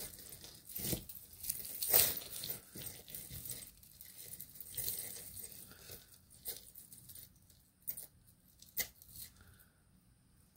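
Small metal charms and chain of a silver-tone charm bracelet clinking and rustling as they are handled, a run of irregular light clicks, the sharpest about two seconds in.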